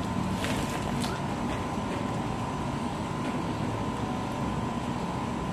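Steady low background rumble with a faint thin hum running through it, and a couple of soft, faint rustles about half a second and a second in.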